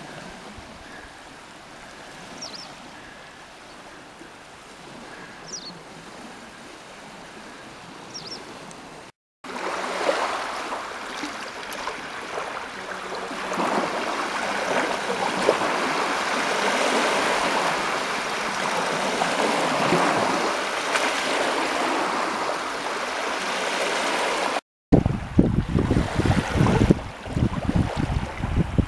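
Small waves of Lake Ladoga lapping and washing up on a sand beach, the wash swelling louder after a cut about nine seconds in. Wind buffets the microphone in the last few seconds, and a few faint high chirps come through in the quieter opening part.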